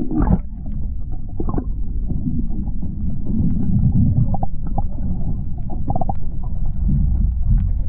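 Muffled underwater rumble and swirl of water, heard through a camera held below the surface, with scattered faint ticks.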